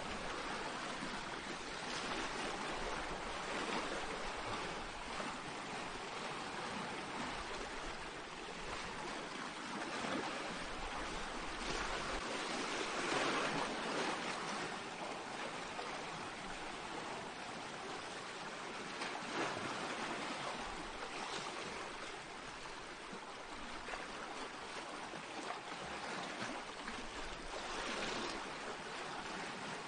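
Small sea waves washing in over a pebble beach, a steady rush with surges as each wave breaks, the strongest about halfway through.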